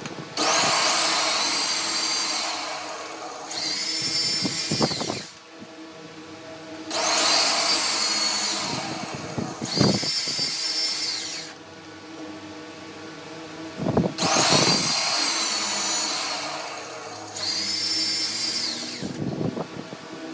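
Power tool run in six bursts of a few seconds each, grouped in three pairs, each with a high whine that drops in pitch as it stops, over a steady low hum.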